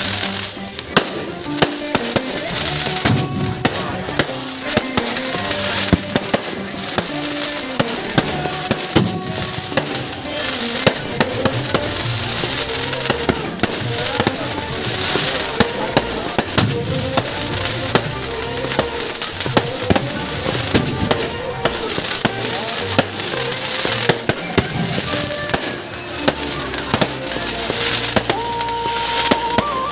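Fireworks packed into a burning Ravan effigy going off in a dense, irregular string of bangs and crackles, with music playing throughout.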